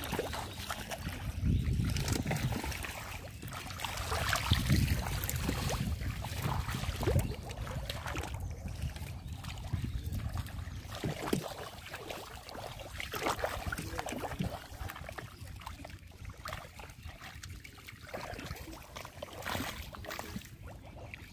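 Muddy pond water sloshing and trickling in irregular small splashes, as people wade and grope for fish by hand.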